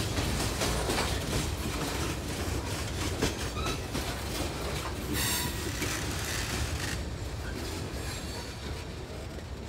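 Freight cars of a Conrail train rolling past on the rails, the wheels clattering over rail joints, with a brief high wheel squeal about five seconds in. The last car passes about seven seconds in and the rumble fades as the train moves away.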